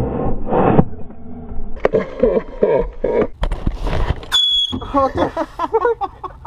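People talking, with one short high-pitched electronic beep about four seconds in.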